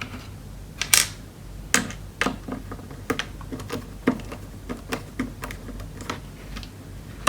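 Irregular small clicks and taps of a screwdriver and loose screws while the last screws are removed from a mechanical keyboard's case. A sharper click comes about a second in.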